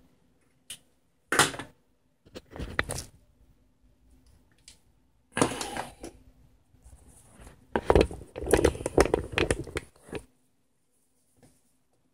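Handling noises from a carbon pile load tester's heavy cables and clamps: irregular knocks, rustling and metallic clatter in several bursts, the loudest and longest cluster near the end.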